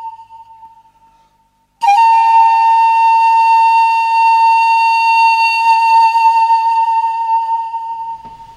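Title music: a lone flute-like note dies away, a brief silence follows, then a single long note is held for about six seconds, scooping up into pitch at its start and fading out near the end.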